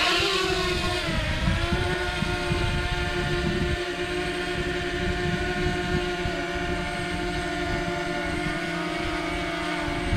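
DJI Mavic Mini drone's propellers whining in flight as a steady pitched buzz with several overtones, dipping slightly in pitch about a second in and then holding. Wind buffets the microphone underneath.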